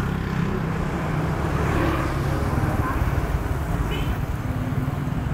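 Street traffic dominated by motorbike engines: a steady, dense low rumble of motorcycles and other vehicles passing. A brief high chirp comes about four seconds in.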